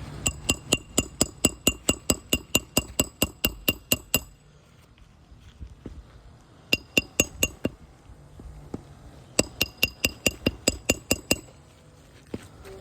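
Hammer driving roofing nails: quick, evenly spaced ringing strikes about five a second, in three runs: about twenty, then about five, then about a dozen.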